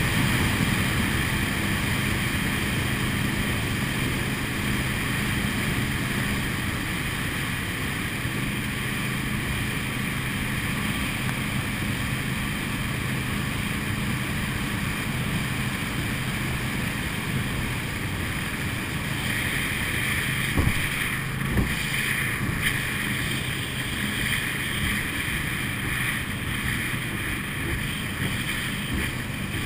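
Motorboat engine running steadily at low speed, with wind on the microphone and water hissing along the hull. A few sharp knocks come about two-thirds of the way through.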